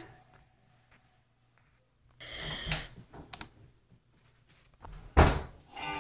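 Handling noise from a hand moving a plush toy right against the microphone: soft rustling and a few clicks, then a louder bump about five seconds in.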